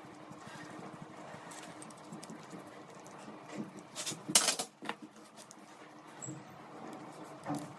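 Light scratching and rustling of handwork, with a few sharp clicks and knocks a little past the middle, the loudest about four and a half seconds in.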